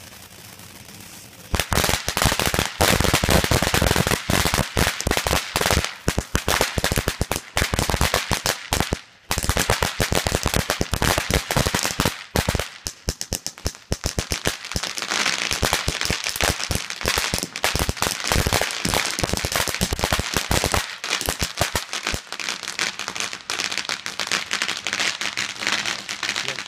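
Ground firework fountain crackling: a dense, rapid stream of sharp pops and cracks that starts about a second and a half in and keeps going, with one brief pause about a third of the way through.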